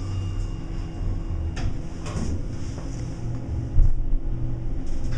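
1991 Dover elevator car running with a steady low hum, with a brief sweeping scrape about two seconds in and a single thump just before four seconds.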